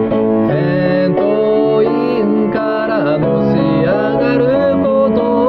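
A solo voice singing with an acoustic guitar accompaniment, the sung notes bending and gliding between held pitches.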